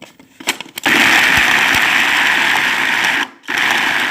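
Electric grinder running in short pulses, grinding softened garlic and dried figs with honey and olive oil into a paste. A few light clicks, then the motor starts about a second in, runs for about two and a half seconds, stops briefly, and starts again.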